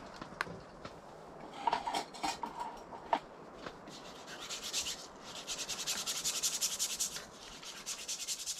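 A camp cup or dish being scrubbed by hand with a small scrub brush or pad. There are a few light clinks early on, then a stretch of rapid back-and-forth scrubbing strokes from about halfway through.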